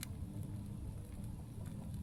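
Campfire crackling: scattered sharp pops, the loudest right at the start, over a low steady rumble.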